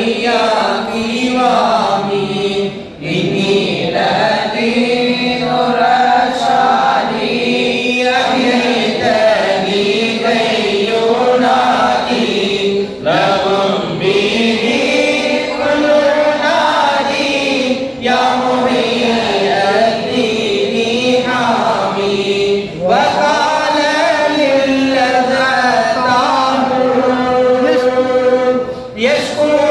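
A man chanting an Arabic devotional Maulid recitation in long melodic phrases, with short breaths between them.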